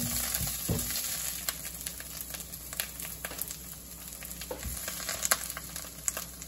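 Sliced shiitake mushrooms sizzling and crackling in a hot nonstick wok with only a little leftover oil. A silicone spoon stirs them in the first second, and the sizzle gradually quietens.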